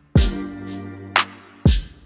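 Background music: a programmed beat with two deep kick drums about a second and a half apart and a sharp snare-like hit between them, over sustained chords.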